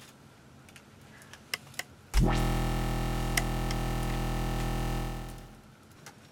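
A held synthesizer chord comes in suddenly about two seconds in, sustains for about three seconds and fades out. A few faint clicks come before it.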